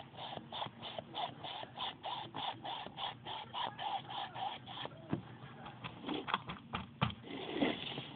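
Damp sponge wedge patting and rubbing acrylic paint over a small stretched canvas in quick, even strokes, about three or four a second. The strokes give way to a few irregular taps and knocks about five seconds in.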